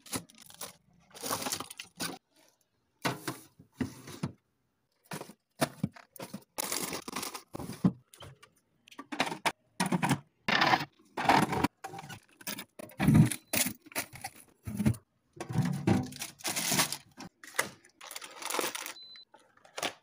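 Packaging crinkling and plastic clattering as snack bars, food containers and a bag of frozen food are set into a refrigerator's plastic drawer, shelves and door bin. The sounds come in short bursts of rustling and knocks with brief silent gaps between them.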